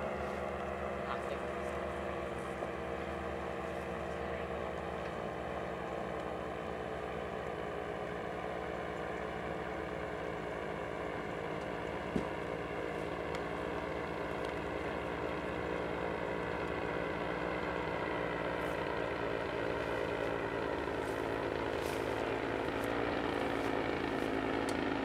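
Powered paraglider's paramotor engine and propeller droning steadily in flight, its pitch wavering slightly and the sound growing gradually louder as it comes nearer. A single short tap about halfway through.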